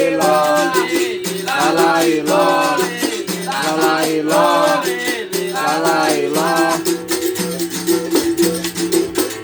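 Berimbau being played: the steel string is struck in a quick rhythm with a caxixi rattle shaking, and the note switches between two pitches. For most of it a voice sings along.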